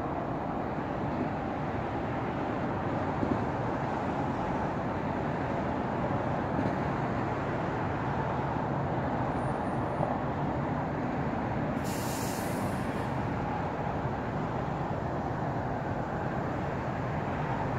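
Steady, even rumble of an approaching freight train's diesel locomotives, two EMD SD70Ms and a GE ES44AH, still some way off. A brief hiss comes about twelve seconds in.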